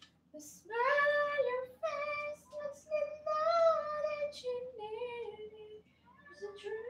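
A high voice singing unaccompanied in held, gliding phrases, with a short pause between phrases about two-thirds of the way through.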